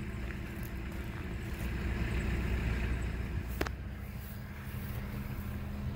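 Steady low hum of an idling engine, with a single sharp click about three and a half seconds in.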